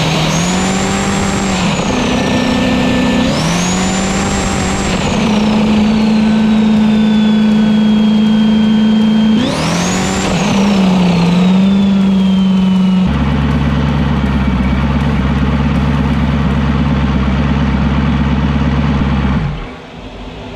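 Turbocharged LS V8 jet ski engine running hard on the water, at a low boost of about 6 psi. Its pitch shifts as the throttle is worked, and a high turbo whine rises sharply three times and falls away slowly after each. About two-thirds of the way through, the whine stops and the engine settles into a lower, deeper steady run as the ski comes off speed, then drops away near the end.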